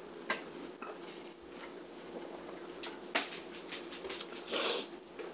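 Quiet table sounds of eating and drinking: a few light clicks and taps, with a short hiss about four and a half seconds in.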